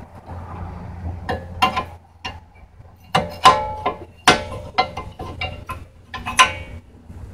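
Sharp metallic clinks and knocks as a steel bar is levered against the brake pads and caliper bracket of a disc brake to pry the pads out. There are a series of separate strikes, each with a short ring, the loudest three a little past three, past four and past six seconds in.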